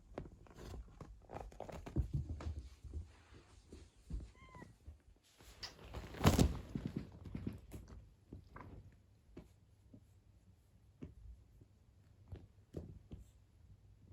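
A house cat gives a short, faint meow about four and a half seconds in, among light taps and knocks. A louder thump comes about six seconds in.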